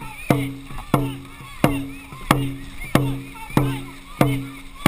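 Dragon boat drum beaten in a steady stroke rhythm, about one and a half beats a second, each beat a sharp hit followed by a ringing low boom.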